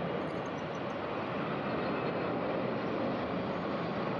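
Steady jet airliner engine noise, an even rushing sound with a faint hum through it and no rise or fall.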